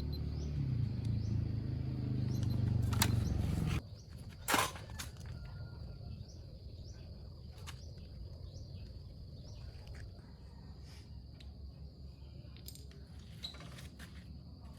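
Off-road motorcycle engine running at a steady idle, cut off abruptly about four seconds in, followed by a sharp click. After that there is a quiet outdoor background with small scattered clicks and a faint repeating high chirp.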